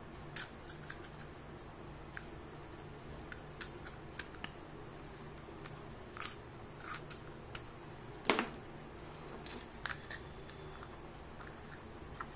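Pieces of a plastic toy doctor set being handled: scattered light clicks and taps of hard plastic, with one louder clack about two-thirds of the way through.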